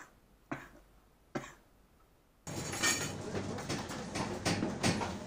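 Two short coughs. About halfway, an abrupt change to the steady rumble and clatter of riding in the back of a moving van, with its load of metal ladder and tools rattling.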